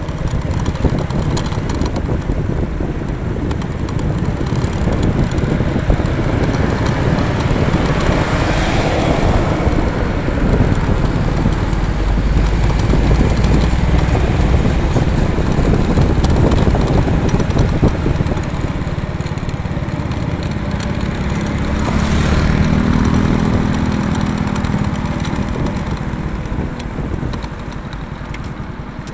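Small motorcycle engine running at low riding speed, with a steady low drone mixed with road and wind noise. A clearer engine hum comes up about two-thirds of the way through.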